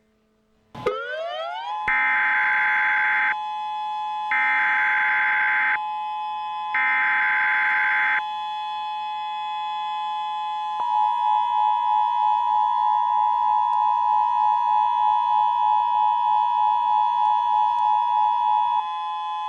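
Civil-defence-style siren winding up and holding a steady two-note wail. Over it sound three short bursts of EAS data-header tones, then the two-tone EAS attention signal, loud and pulsing, for about eight seconds before it cuts off.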